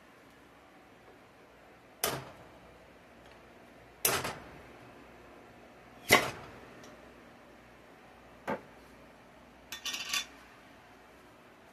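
Sharp metal clicks and taps from opening a home-canned mason jar of beans, the lid being worked loose: three sharp clicks about two seconds apart, the third the loudest, then a fainter click and a short clatter near the end.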